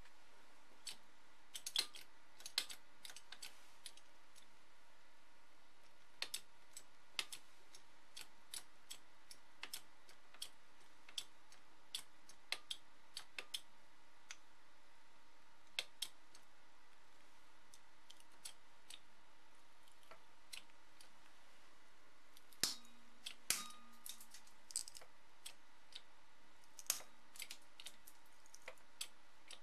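An LED flashlight crushed slowly in a homemade bottle-jack hydraulic press gives off scattered, irregular sharp clicks and cracks. The loudest two come about three-quarters of the way through, as its lens and body give way.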